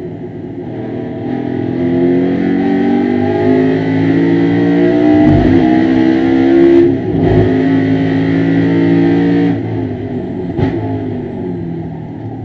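BMW E92 M3 race car's V8, heard from inside the cockpit, revving hard under full throttle with its note rising. There are two short breaks about five and seven seconds in as it shifts up, and the note drops off near the end as the driver lifts.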